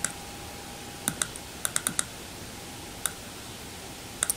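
Sharp clicks of a computer keyboard and mouse, scattered singly and in quick pairs, about nine in all, over a faint steady hum.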